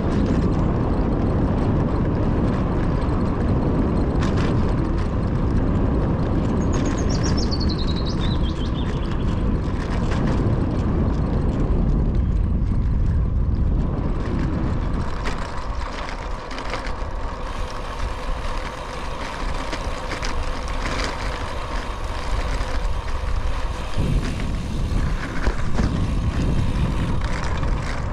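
Steady wind rumble on the microphone with road noise while riding a bicycle, easing for several seconds past the middle and then rising again. A short falling high whistle sounds about seven seconds in.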